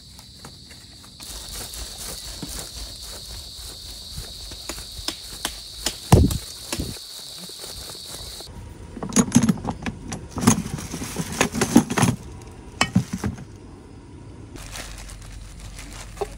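Insects droning steadily at a high pitch, with scattered light clicks, until the drone cuts off about halfway through. A run of loud knocks and clatters follows, as of gear being handled.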